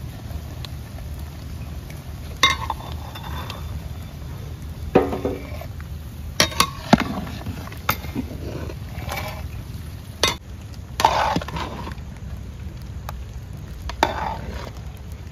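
Metal ladle stirring drumstick pieces in a large aluminium pot of simmering water, with about ten irregular knocks and scrapes of the ladle against the pot. A steady low rumble runs underneath.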